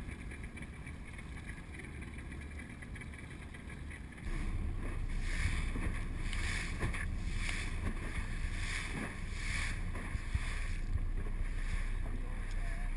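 Small motorboat running at speed across choppy water: low wind rumble on the microphone over engine and hull noise, starting abruptly about four seconds in, with a swish of spray as the hull hits the chop about every three-quarters of a second. Before that, a quieter wash of wind and water around the boat at rest.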